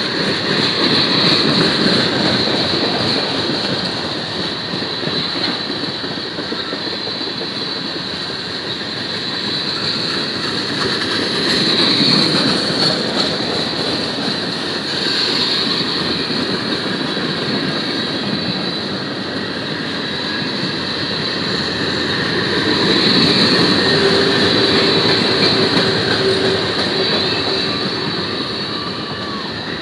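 Freight cars of a manifest train rolling past at track speed: a steady rumble of steel wheels on rail, with a thin high ringing from the wheels held above it. The loudness swells and eases every several seconds as the cars go by.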